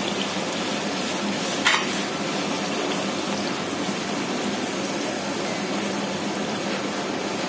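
Tomato-and-spice masala sizzling and bubbling in hot oil in a kadhai while being stirred with a spatula, a steady frying hiss. One short sharp click about two seconds in.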